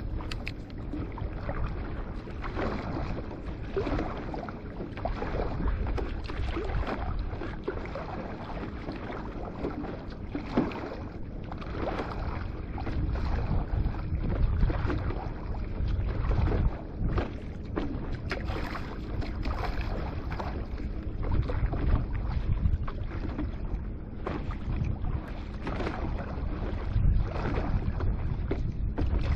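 Water splashing and slapping against a small board moving over the sea, in short irregular splashes, with wind on the microphone.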